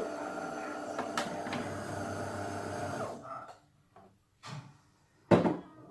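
De'Longhi Dinamica bean-to-cup coffee machine running with a steady hum that stops about three seconds in. A sudden clunk comes near the end.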